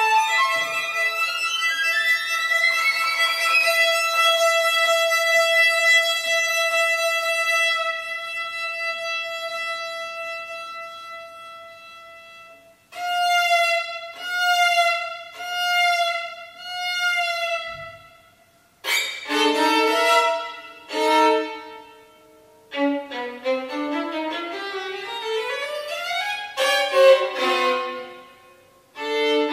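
Solo violin playing a contemporary piece with extended techniques. A long high note is held and slowly fades away, then about five separate swelling notes with vibrato follow, then short, loud double stops and chords, with a rising slide in the lower voice near the end.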